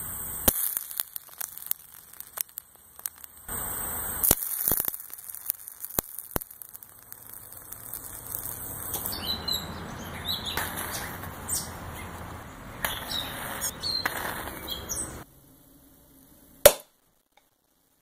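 Scattered sharp cracks and pops from an oxidizer mixture reacting on a saucer, with birds chirping in the background during the second half.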